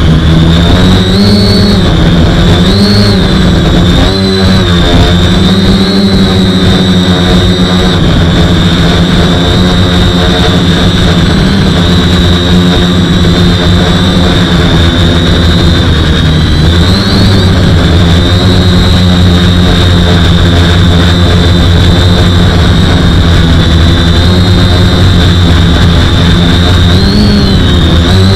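A quadcopter's four 2212 1000kv brushless motors spinning unbalanced propellers in flight, heard loud and close from a camera on the frame. They make a steady high whine over a low buzz, with brief rises in pitch a few times.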